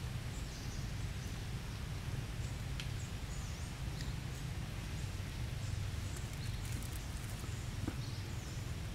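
Outdoor ambience: a steady low rumble with a few short, faint, high chirps of small birds scattered through it.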